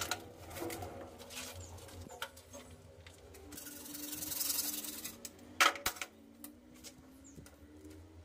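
CPVC pipe and fittings being handled and worked: plastic rubbing and scraping with scattered clicks, a longer hissing scrape about four seconds in, then a sharp click.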